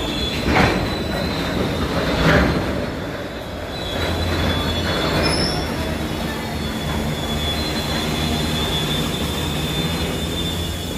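A goods train of tank wagons rolling past, its wheels rumbling over the rails with a steady high-pitched wheel squeal. Two louder clanks come in the first few seconds.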